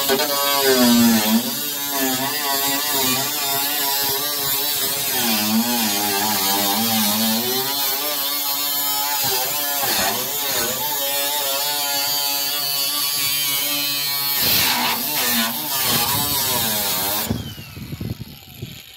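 Flex 24-volt brushless cordless angle grinder with a cutoff wheel cutting through car-body sheet steel. Its motor whine dips and recovers in pitch again and again as the wheel loads up in the cut, over the hiss of the cutting. Near the end the grinder stops and winds down.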